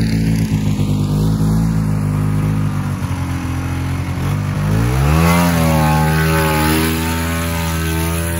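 Snowmobile engine running steadily under way, then revving up about halfway through and holding at a higher pitch as the sled picks up speed.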